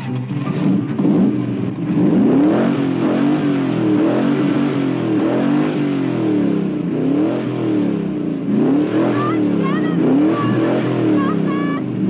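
Car engines revving, their pitch rising and falling over and over about once a second. A few short high squeals come in near the end.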